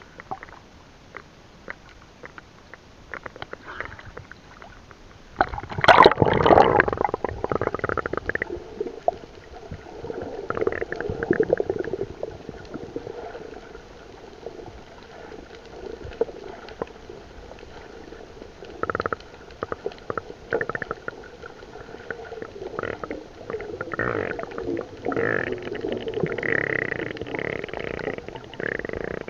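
Muffled sound from a camera going under the sea surface: a loud rush of water about six seconds in, then underwater gurgling and sloshing with scattered clicks, swelling again near the end.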